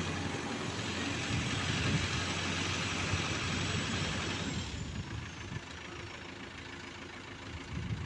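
A large vehicle's engine running, with a loud, even hiss over it that dies down about halfway through, leaving a quieter hum.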